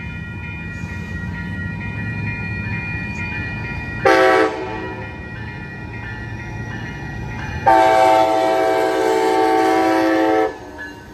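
Siemens SC44 Charger diesel locomotive approaching a grade crossing, sounding its air horn: a short blast about four seconds in, then a long blast of nearly three seconds. Under it are the low rumble of the oncoming train and the steady ringing of the crossing bell.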